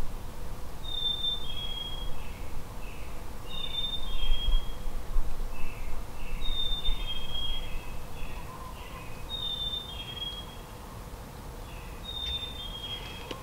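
A songbird singing the same short phrase over and over, about every three seconds: two clear, high whistled notes followed by a run of lower, falling notes. A low rumble sits underneath.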